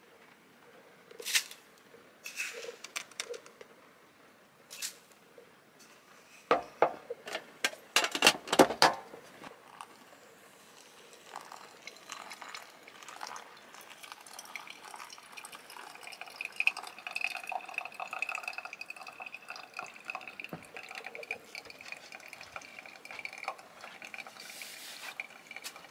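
Hot water poured from a kettle onto ground coffee in a paper filter in a plastic pour-over cone, a steady trickling and filling sound through the second half. Before it come a few clicks and a burst of clatter from crockery being handled, the loudest part.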